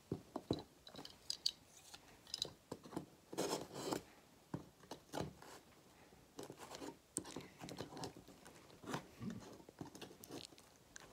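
Box cutter blade slicing along the edges of a sealed cardboard box: scattered short scrapes and clicks, with a longer scrape about three and a half seconds in.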